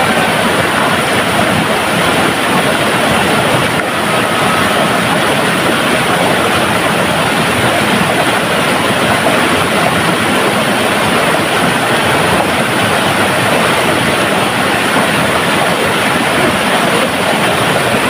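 Fast-flowing stream rushing over rocks: a loud, steady rush of water.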